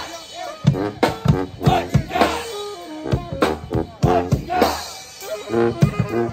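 Small brass band playing Dixieland jazz: saxophone and trombone carry the melody over sousaphone bass, with a steady beat on snare and bass drum.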